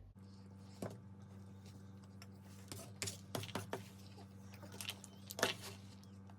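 Faint, scattered mouth clicks and small crunches of someone chewing a soft tortilla taco with trail mix in it, over a steady low hum.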